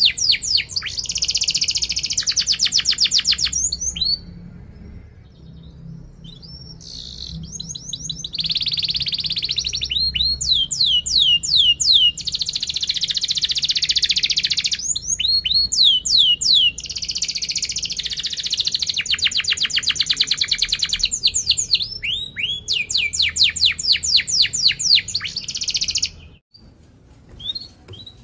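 Domestic canary singing: long phrases of rapid rolling trills made of fast repeated sweeping notes, broken by short pauses about four seconds in and near the end.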